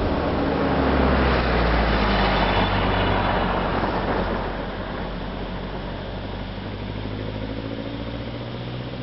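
Car engine running through a 5Zigen aftermarket exhaust: the exhaust note swells over the first few seconds, then drops back to a lower, steadier level about four and a half seconds in.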